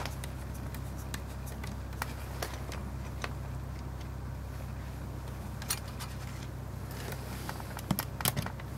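Scattered small metal clicks and light scrapes of a Leica M3's winding-lever parts being unscrewed and lifted off the camera's top plate, with a quick cluster of clicks near the end. A steady low hum runs underneath.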